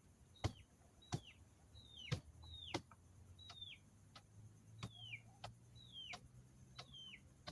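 A bird repeating a short, downward-sliding call about every three-quarters of a second, each call paired with a sharp click.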